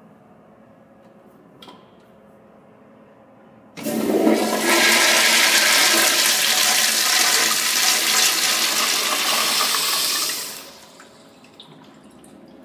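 Commercial toilet with a chrome flushometer valve flushing: a light click, then about four seconds in a sudden loud rush of water that runs steadily for about seven seconds and dies away quickly.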